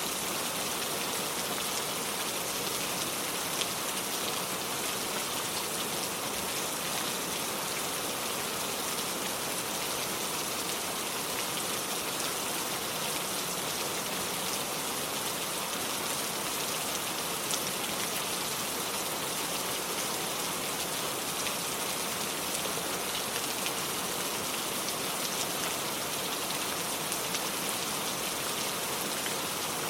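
Steady rain falling on hard surfaces, a constant hiss with scattered individual drop ticks.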